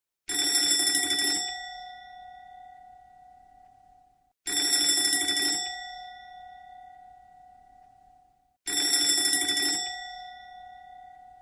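Electric fire alarm bell ringing in three short bursts about four seconds apart, each lasting about a second and leaving a ringing tail that fades away.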